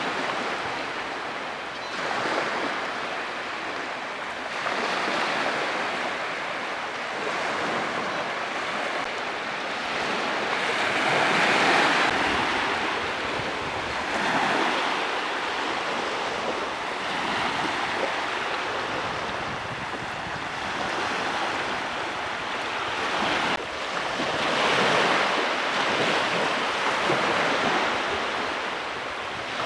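Sea waves breaking and washing up on a beach, the surf rising and falling every few seconds.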